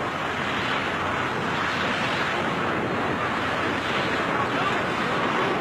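Steady rushing wind noise on the microphone during a freefall skydive, even and unbroken.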